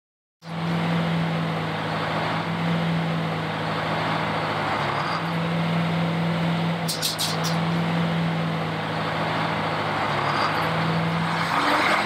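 Circular sawmill running: the large circular saw blade and its drive spinning steadily with a constant low hum. A quick run of high ticks comes about seven seconds in.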